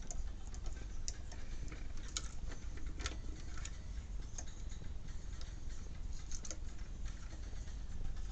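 Scattered light clicks and taps of small plastic parts and wire connectors being handled during reassembly of a refrigerator dispenser's control board wiring, over a steady low hum.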